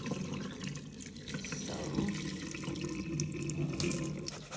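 Tap water running into a pot as brown rice is rinsed, the water splashing over the grains.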